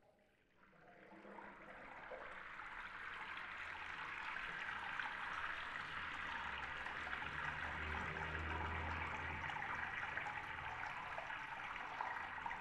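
Water running steadily from a bathroom sink tap into the porcelain basin, fading in over the first couple of seconds and then holding steady, with a low rumble underneath around the middle.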